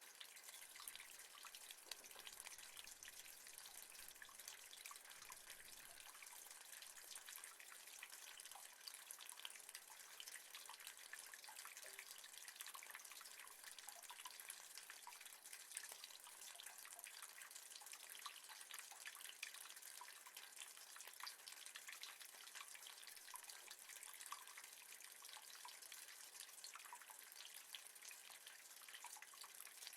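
Rain falling on metal, a faint, steady, dense scatter of small drop ticks with no letup.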